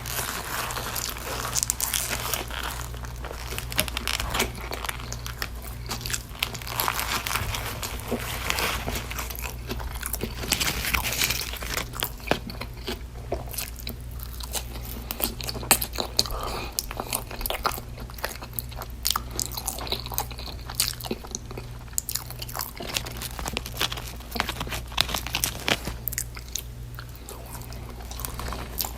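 Close-miked eating sounds: repeated biting and chewing of food, with many sharp crunches and wet mouth clicks, over a faint steady low hum.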